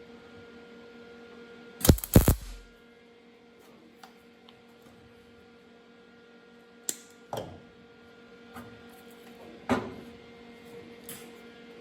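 Steady electrical hum with a few sharp knocks, the loudest a quick cluster of three about two seconds in, then single knocks near the middle and near the end.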